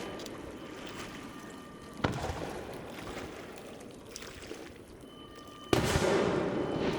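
Aerial fireworks shells bursting: two booms, one about two seconds in and a louder one near the end, each followed by a long rolling echo and crackle.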